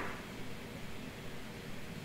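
Faint steady hiss: quiet room tone with no distinct event.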